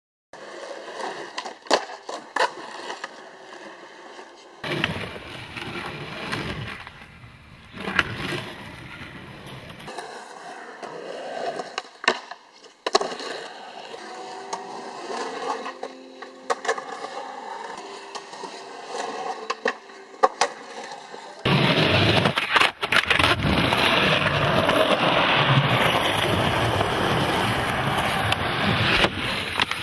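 Skateboard wheels rolling on rough concrete, with sharp clacks of the board popping and landing many times. The sound changes abruptly at several cuts and is loudest and densest near the end.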